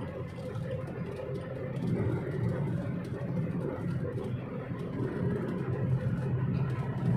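A motor vehicle on the move: steady engine and road rumble.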